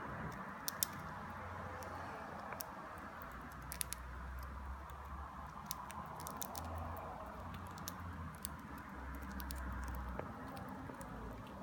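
Scattered small, sharp clicks and taps at irregular moments over a steady background hum: a budgerigar pecking and nibbling.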